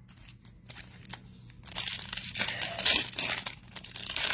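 Foil wrapper of a Panini Prizm basketball card pack being torn open and crinkled by hand, starting about two seconds in after a few faint clicks.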